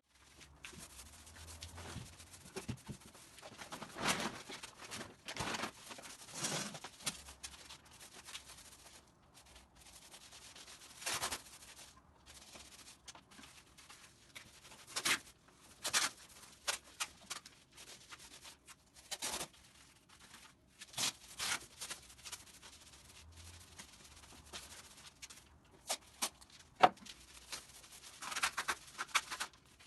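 Paint roller loaded with wall paint being rolled over a plastered wall: a sticky rubbing in irregular strokes, with a few short clicks in between.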